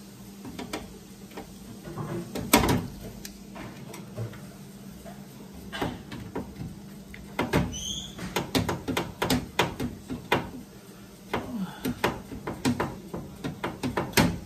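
Clicks, taps and knocks of hands working on a washing machine's sheet-metal rear bracket and its wire connectors. There is one louder knock a couple of seconds in, and a quick run of clicks and taps through the second half.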